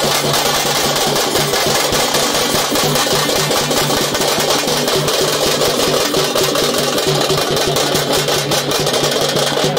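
A festival drum band playing a fast, unbroken drum roll, with a steady low tone held underneath.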